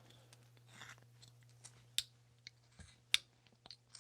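Carving knife slicing into basswood: a few short, sharp snicks as the blade cuts and chips pop free, with a soft scrape near the start and the loudest snick about three seconds in. A steady low hum runs underneath.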